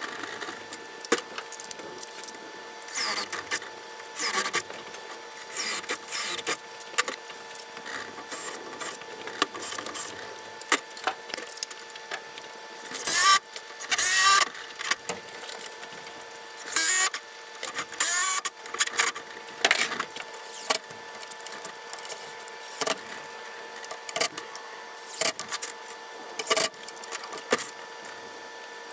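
Cordless drill-driver running in repeated short bursts, driving screws into a wooden frame, with knocks and clunks of the boards being handled in between; the loudest bursts come about halfway through. A steady faint hum lies underneath.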